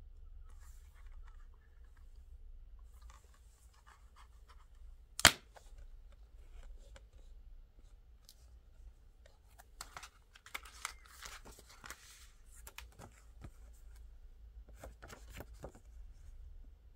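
Plastic Blu-ray case being handled: one sharp snap about five seconds in as the case is pulled open, then rustling and light clicks as the paper insert is taken out and handled.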